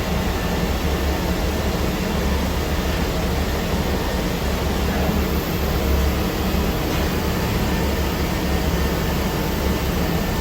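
Biesse Rover A Smart 5-axis CNC router running while machining a curved wooden part: a steady, even noise over a low hum.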